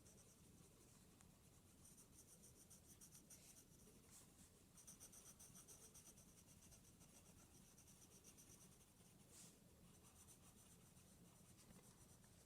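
Faint scratching of a drawing tool on paper in quick back-and-forth strokes, shading in a small area of a drawing.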